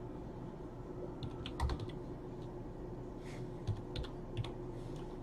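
Scattered keystrokes on a computer keyboard, a few short bursts of typing with pauses between, over a faint steady hum. The typing is a search to look up a player.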